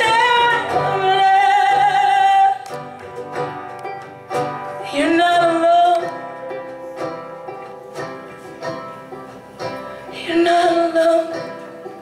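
Live band music: a woman singing long held notes with vibrato, in three phrases, over banjo, electric guitars and drums.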